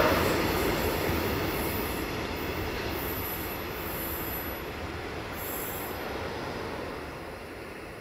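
Wheels of a container freight train's last wagons running on the rails as the train pulls away, the noise fading steadily.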